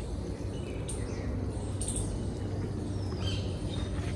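Birds chirping in a few short, high calls, one of them falling in pitch near the end, over a steady low rumble.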